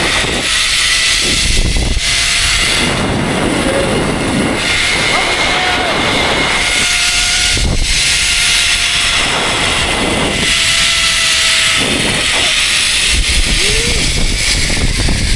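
Zip line trolley running along its steel cable, a steady whine over loud rushing wind noise on the microphone.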